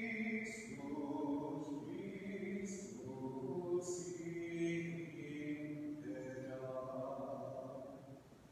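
Slow hymn singing at the opening of Mass, with long held notes, dying away near the end: the close of the entrance chant.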